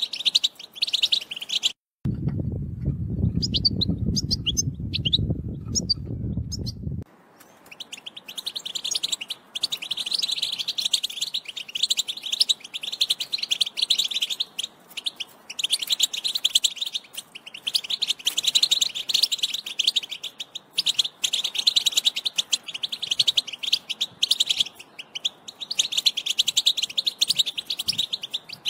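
European goldfinch song: a fast, unbroken, high twittering warble. About 2 s in the song drops out and a low rumbling noise with only faint chirps takes over for about five seconds, then the twittering resumes.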